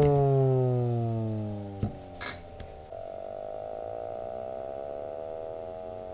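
Small woofer in a homemade PVC-pipe mini subwoofer playing test-tone sweeps from a phone's bass test app. A tone glides down and fades over the first two seconds, followed by a few sharp clicks. From about three seconds a new sweep rises slowly from the deepest bass, heard mostly as a quiet, distorted stack of higher overtones.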